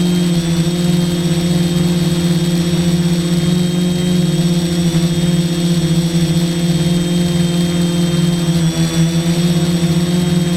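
F450 quadcopter's four brushless motors and propellers buzzing steadily in flight: a strong, even hum with a thin high electric whine above it. The pitch wavers slightly near the end.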